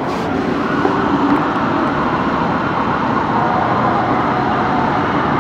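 Steady, loud rushing street noise heard from high above, with a fire engine's siren sounding somewhere in it.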